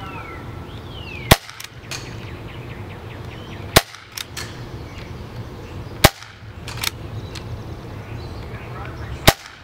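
Four sharp shots from an Umarex H&K USP CO2 airsoft pistol firing BBs, spaced two to three seconds apart, each followed by a much fainter click.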